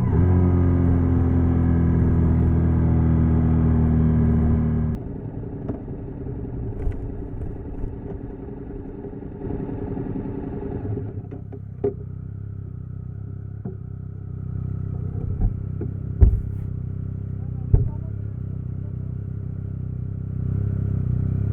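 Honda NC750X parallel-twin engine held at steady raised revs, then dropping suddenly to a quieter, lower running about five seconds in. A few sharp clicks or knocks are heard later on.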